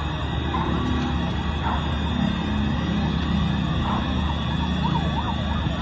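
Emergency-vehicle sirens wailing over a steady low rumble. About four seconds in, a siren switches to a fast rising-and-falling yelp.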